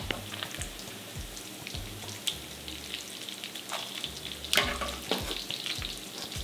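Diced pork bacon sizzling steadily in its rendered fat in a clay cazuela, fried until browned. A wire skimmer knocks against the pot a few times as the pieces are lifted out, most clearly about four and a half seconds in.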